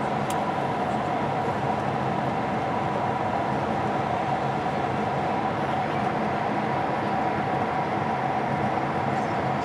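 Steady cabin drone of a Boeing 777-300ER in flight: rushing airflow and the hum of its GE90 jet engines, with a constant high whine above it.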